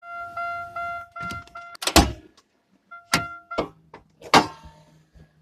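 2005 Buick Century's warning chime dinging rapidly, about two and a half dings a second. A loud clunk about two seconds in is followed by a few more dings and two more sharp clunks.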